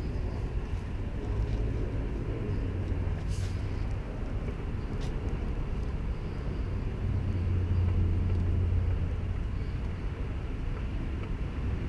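Steady low rumble of road traffic going by, a little louder about two-thirds of the way through, with a couple of faint clicks.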